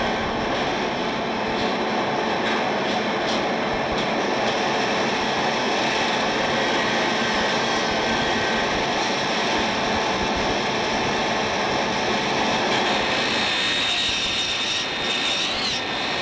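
Steady whirring of workshop machinery, a drill and a buffing wheel working on golf iron heads. A high, steady whine joins about three-quarters of the way in.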